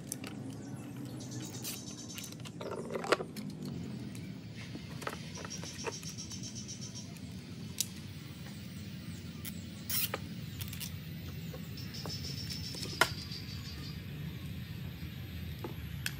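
Background music, with a few sharp clicks and knocks as plastic tubing and sprayer parts are handled; the loudest clicks come about three seconds in and near thirteen seconds.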